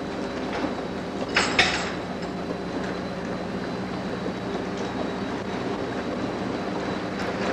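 Steady machinery hum. About a second and a half in come two short hissing spurts, as gas blows water out through the hoses of a Brown's gas test rig.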